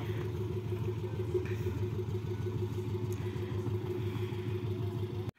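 Hyundai H1 campervan's engine idling steadily, a low even hum with no revving. It cuts off suddenly near the end.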